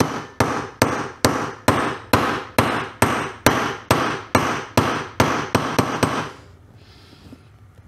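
Hammer blows driving a new wheel bearing into a motorcycle wheel hub: about sixteen steady, evenly spaced strikes, roughly two and a half a second, each with a short ring. They seat the bearing fully until it bottoms out, and they stop about six seconds in.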